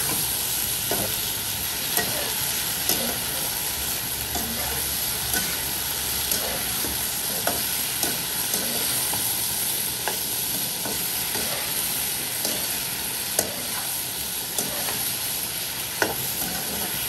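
Sea snail meat and red bell pepper sizzling in a nonstick wok as a slotted spatula stirs them, with a clack of the spatula against the pan about once a second over the steady frying hiss.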